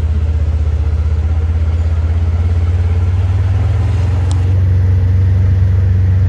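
A vehicle's engine running steadily, a loud low drone that gets slightly louder about four and a half seconds in.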